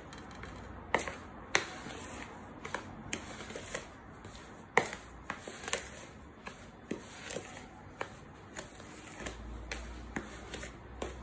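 Dry powdery ingredients being stirred in a ceramic bowl, with a spoon and fingers scraping through the powder. Irregular sharp clicks and scrapes against the bowl, a few each second, over a soft rustle.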